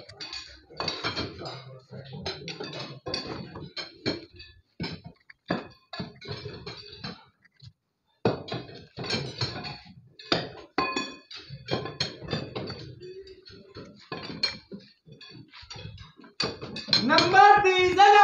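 Steel lifting jacks and bars clanking and clinking in quick, irregular metal strikes. Near the end a voice calls out in a long, drawn-out cry.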